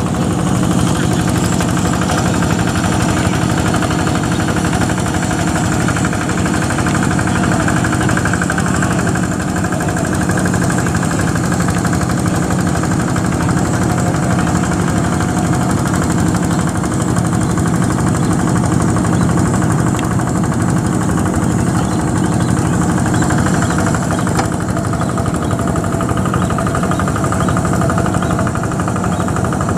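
Yanmar single-cylinder diesel engine on a two-wheel hand tractor running steadily under load as it pulls a moldboard plough through soft, wet paddy mud.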